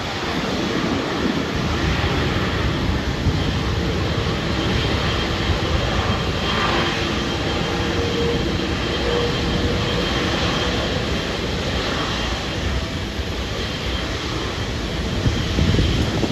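Jet engines of a China Airlines Boeing 777-300ER (GE90-115B turbofans) running: a steady rumble with a faint high whine over it.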